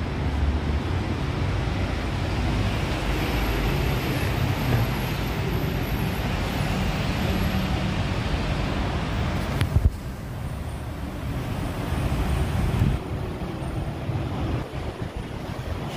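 Steady road traffic rumble, with a single sharp knock about ten seconds in.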